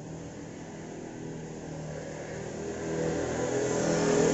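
A passing motor vehicle's engine running, growing steadily louder as it approaches.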